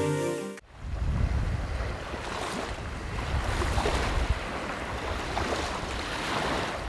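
Music cuts off about half a second in, then small waves break and wash onto the shore in a steady rush of surf.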